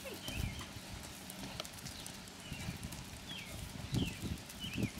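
Horse's hooves striking the sand footing of a riding arena: dull, irregular thuds as the horse canters past, with the strongest about four seconds in.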